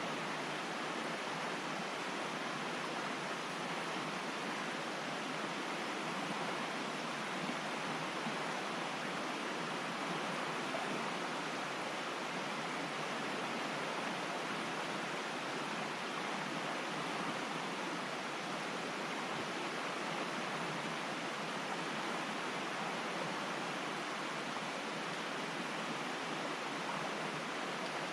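Steady, even rushing noise that does not change, with no crackles, pops or other distinct sounds in it.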